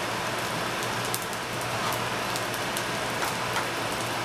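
Rice-and-pasta mix sautéing in butter in a skillet: a steady sizzle with small scattered pops as a slotted spatula stirs it.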